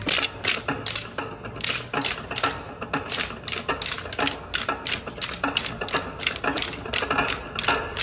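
Many martial-arts staffs striking one another in a group drill: rapid, uneven clacking, several strikes a second.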